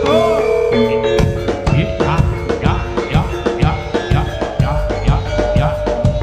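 Javanese jaranan music: fast, steady drumming over held, ringing metal tones.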